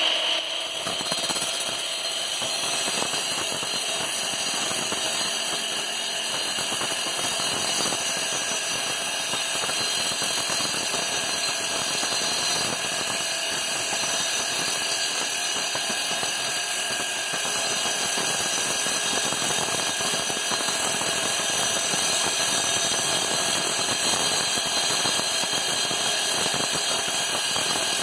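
Large-bladed chop saw wet-cutting down through a stone block: a steady motor tone under a continuous gritty grinding as the spinning blade is pressed slowly into the stone.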